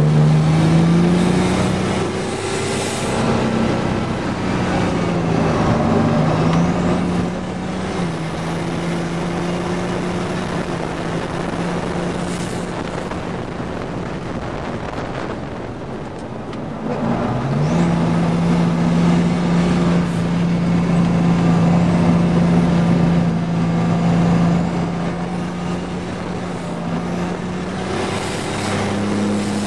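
GMC Syclone's turbocharged V6 heard from inside the cab at racing speed, its pitch climbing and holding, then dropping as the driver shifts and lifts for corners. It eases off about halfway through and comes back on hard about a second later, over steady road and wind noise.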